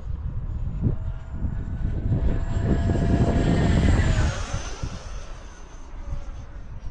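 E-flite F-15 Eagle RC jet's 64 mm electric ducted fan whining as the model makes a low pass. It grows louder, then drops in pitch and fades after passing overhead about four seconds in. Gusty wind buffets the microphone throughout.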